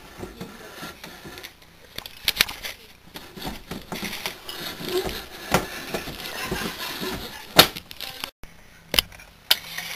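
Handling noise of plastic toys and the camera being moved: scattered light clicks, knocks and rustles, cut off abruptly once near the end.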